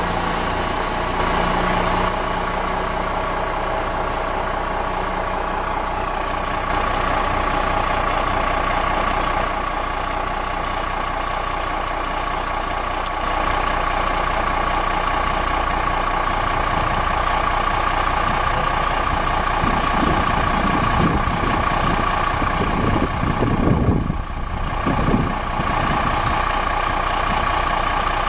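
Fire trucks' diesel engines running: a fire tanker pulling away, then a fire engine idling at its station bay, its engine note rising and falling a few times near the end. A steady high tone sounds throughout.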